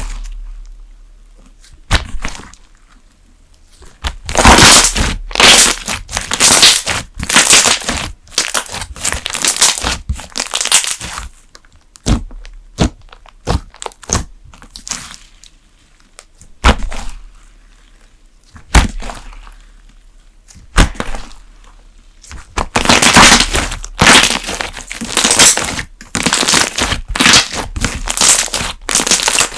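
Thick slime being pressed and worked by hand, giving sharp pops and dense runs of crackling, with quieter spells of single clicks between the busier stretches.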